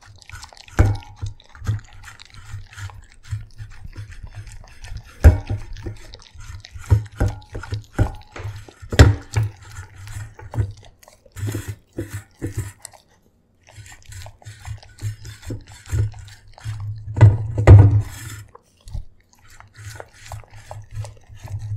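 A corgi-sheltie-beagle mix dog eating from a stainless steel bowl right by the microphone, licking and chewing with many irregular clicks and smacks and a short pause about thirteen seconds in.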